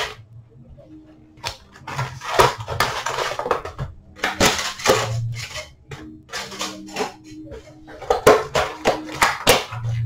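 A cardboard trading-card box being opened and its wrapped card packs handled: a run of short rustles, scrapes and crinkles of cardboard and pack wrappers.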